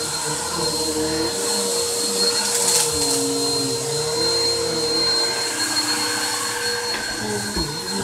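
Bagless upright vacuum cleaner running steadily as it is pushed back and forth over the floor, its motor hum wavering slightly up and down in pitch.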